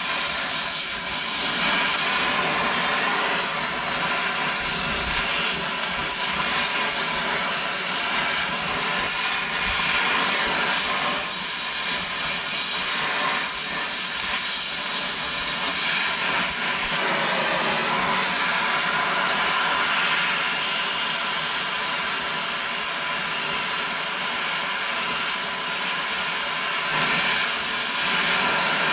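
Harbor Freight pneumatic angle grinder running flat out on compressed air: a steady hiss of air with a faint whine through it. The grinder is overheating and partly melted, yet still running.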